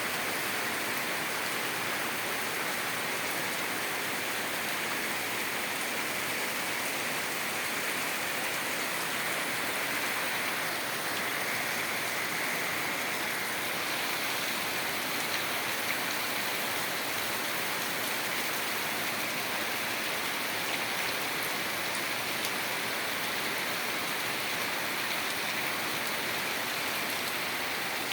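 Heavy rain falling steadily, a continuous even hiss of downpour.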